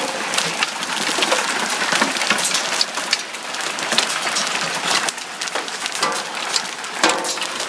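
Large hailstones, about the size of rubber bouncy balls, pelting down with heavy rain: a dense, uneven clatter of sharp impacts over a steady hiss.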